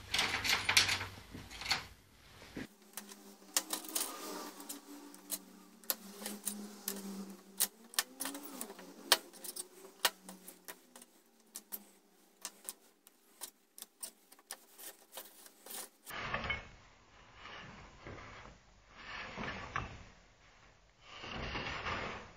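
Pencils, pens and screwdrivers clicking and knocking against a black PVC-pipe desk organizer as they are put into its tubes, a long run of sharp clicks. Rubbing and scraping of hands handling the organizer come at the start and again in the last few seconds.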